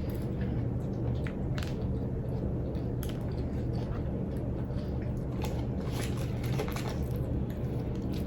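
Close-up chewing of a Big Mac: irregular wet mouth clicks and smacks over a steady low hum.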